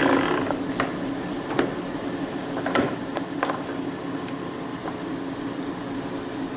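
Economaster 18" x 60" gear-head lathe running with its spindle at 50 RPM: the 10 hp three-phase motor and headstock gearing hum steadily, with light ticks about once a second. A short clattering rattle right at the start.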